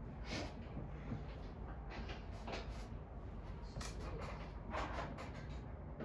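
Scattered soft rustles and scrapes from paper and pens being handled while people write quietly, over a steady low room hum.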